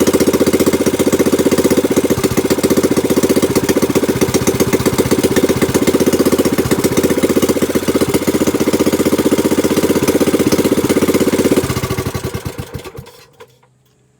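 Small gasoline boat engine with a new Honda-type carburetor running steadily, then faltering about twelve seconds in and sputtering to a stop. It is running without a fuel tank, only on the fuel in the carburetor, so it dies.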